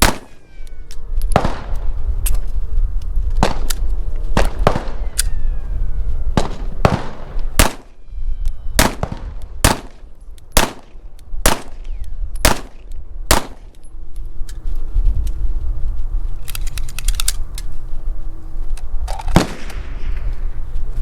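Gunshots at a shooting range: a steady string of single shots about one a second, each with a sharp crack and a ringing echo, then a pause, a quick run of fainter rapid shots, and one last loud shot near the end.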